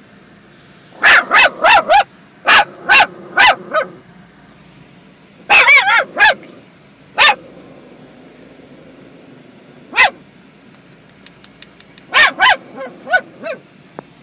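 Chihuahua barking in sharp, high yaps in quick runs of three or four, with single barks and short pauses between. The dog is agitated by the car wash, and the wash runs as a steady low noise underneath.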